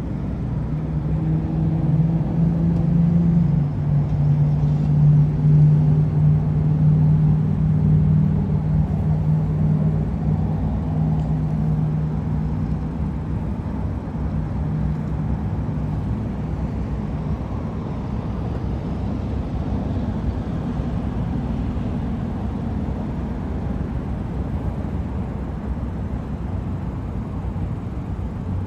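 A motor vehicle's engine running steadily, with a low hum that is strongest in the first half and fades out about halfway through, over a constant low rumble.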